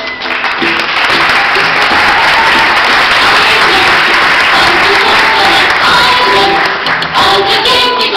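Audience applauding loudly over music, the clapping starting just after the beginning and easing off near the end.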